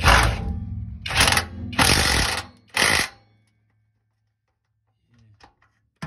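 A power driver tightening a screw into a loose exhaust heat shield, run in four short bursts over about three seconds and then stopping. The screw now has a washer under it so the shield will no longer rattle.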